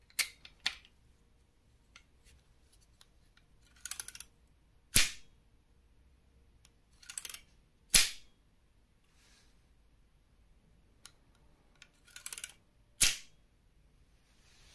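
Copper pipe and brass plumbing fittings being handled and fitted together: a few sharp metal knocks and clicks, three of them loud, about 5, 8 and 13 seconds in. A short scraping rustle comes just before each loud knock.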